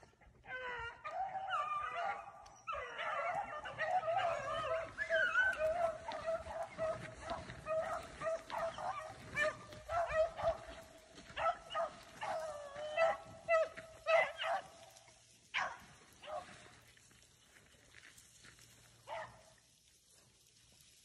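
A pack of beagles baying on the track of a swamp rabbit, several voices overlapping. After about fifteen seconds the voices thin out to a few scattered calls.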